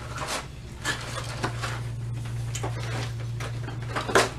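Cardboard pizza box being handled and its lid opened: scattered rustles and light taps, with a louder scrape or flap about four seconds in, over a steady low hum.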